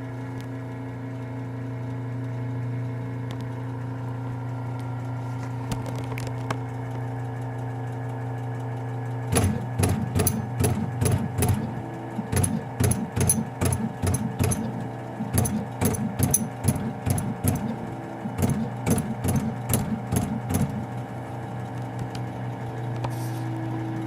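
Automatic key-marking machine at work: a steady hum, then from about nine seconds in quick runs of sharp tapping strokes as it stamps lettering into keys, stopping about twenty-one seconds in.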